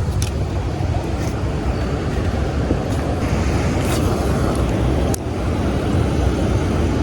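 Steady rushing roar of water pouring over a spillway, with a few faint clicks on top.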